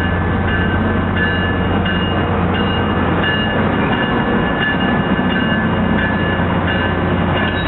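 A Tri-Rail commuter train's diesel locomotive running steadily close by, with a constant low hum. Over it a high two-note tone repeats in short pulses.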